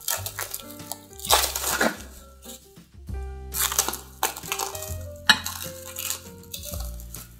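Plastic cling film crinkling in a few short rustling bursts as it is peeled off glass mixing bowls, over soft background music.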